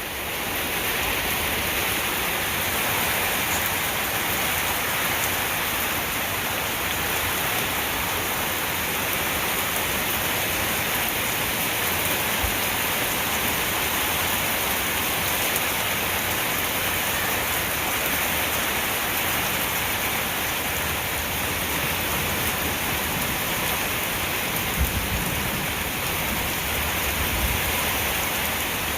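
Heavy thunderstorm rain pouring steadily, a dense, even hiss of rain striking the ground and surrounding surfaces.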